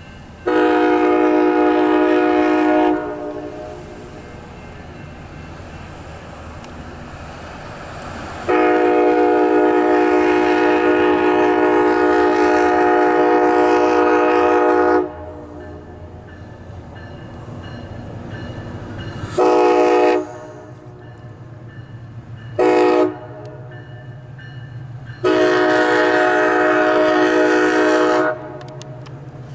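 MARC commuter train's horn: a chord of several notes sounded in two long blasts, then two short ones, then a final long blast, with a steady low rumble underneath.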